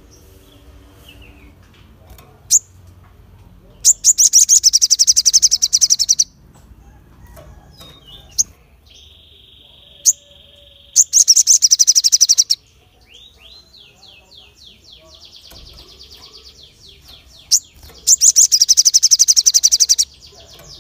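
Male olive-backed sunbird singing in sharp, rapid-fire bursts: three loud, fast trills of about two seconds each. Each trill is preceded by a single sharp chip note, and fainter whistled notes fill the gaps between them.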